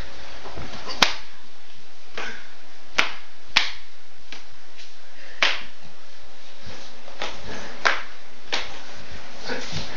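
Hand slaps landing on a person's body: a series of sharp smacks at irregular intervals, the loudest about a second in.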